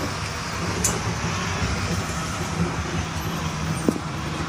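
Model train running on the layout's track: a steady low rumble and hum with a couple of faint clicks.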